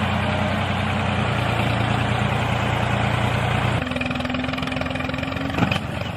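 Tractor engine running steadily. Its tone shifts to a different steady pitch about four seconds in, and there is one sharp click near the end.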